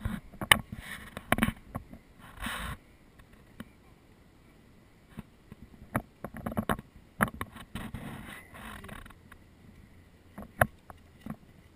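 Wind buffeting an outdoor camera microphone in scattered gusts, with a few short sharp knocks, the loudest about half a second in and again near the end.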